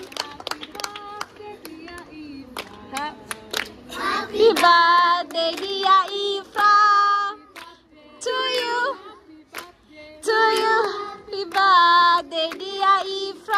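A group of children and adults clapping their hands, then singing together in long held notes from about four seconds in, the clapping carrying on beneath the song.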